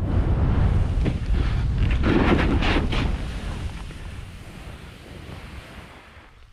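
Wind buffeting the microphone while a snowboard scrapes and hisses over wind-crusted snow on a fast descent. It is loudest and roughest about two to three seconds in, then fades away over the rest.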